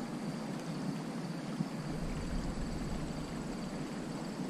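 Shallow river water running over a gravel riffle: a steady rushing.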